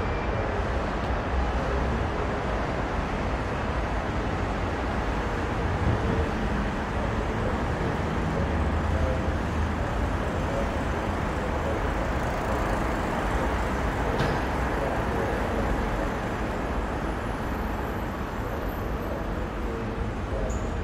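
Steady road traffic noise from cars on a busy road: a continuous low rumble and hiss, with no single vehicle standing out.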